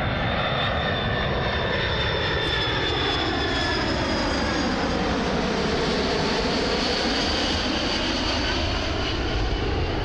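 DC-10 air tanker's three turbofan jet engines running loud and steady during a low pass overhead. The engine sound carries a hollow sweeping tone that falls and then rises again as the jet goes over and away.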